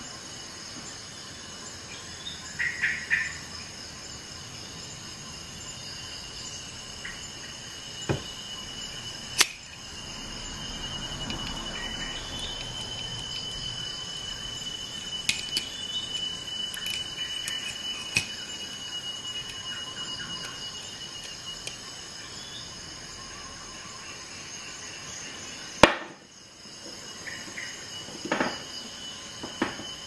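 Leatherman Surge corkscrew working a wine cork out of a glass bottle: sharp metal clicks and knocks of the tool against the bottle, the loudest near the end, and in the middle a long rubbing noise with a thin high squeak as the cork is drawn up the neck.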